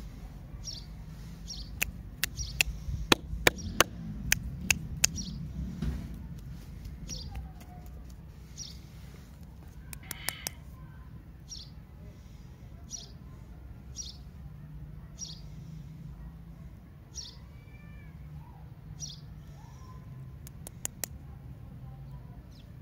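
A bird repeating a short high chirp every second or two over a low background rumble. Sharp clicks from the wrapped lollipops being handled come in a cluster during the first few seconds and briefly again near the end.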